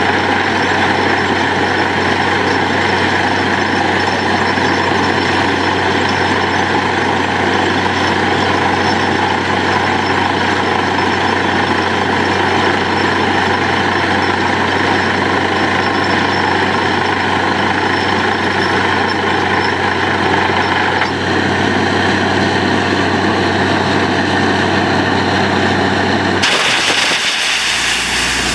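Truck-mounted borewell drilling rig running steadily while drilling, its engine and compressed air blowing rock dust and cuttings out of the bore. Near the end a loud rush of air takes over and the low engine note drops away, then settles into a different hum.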